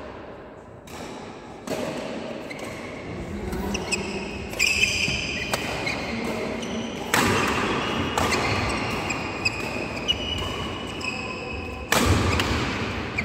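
Badminton rally in a large indoor hall: sharp clicks of rackets hitting the shuttlecock, mixed with brief high squeaks of players' shoes on the synthetic court.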